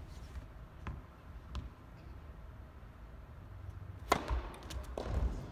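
Sharp crack of a racket striking a tennis ball about four seconds in, echoing in the indoor hall, followed by a few lighter knocks of ball and feet on the court.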